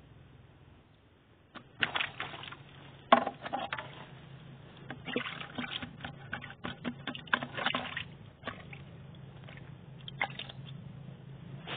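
A freshly caught fish thrashing in a bucket of water, splashing and sloshing in several irregular bursts, the busiest stretch in the middle and a last short splash near the end.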